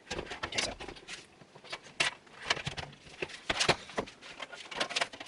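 Irregular clicks, taps and rustles of a computer power supply and its cables being handled, with cables fed through a routing hole in a PC case.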